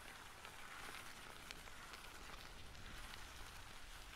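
Bicycle tyres rolling over gravel: a faint, steady crunching hiss with scattered small clicks of stones.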